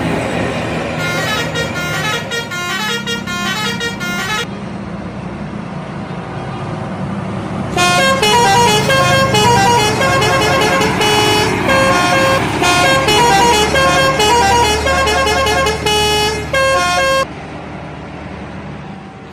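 Bus telolet horn, a multi-tone musical horn, playing a quick tune of stepped notes: a shorter spell about a second in, then a longer, louder spell from about eight to seventeen seconds in. A steady low bus engine and road noise runs between the tunes and after.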